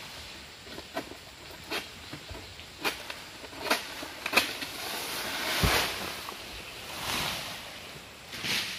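An egrek (long-pole palm-harvesting sickle) cutting into an oil palm frond: five sharp cracks roughly a second apart. Then a rustling crash with a dull thud about five and a half seconds in as a frond comes down, and more rustling of fronds near the end.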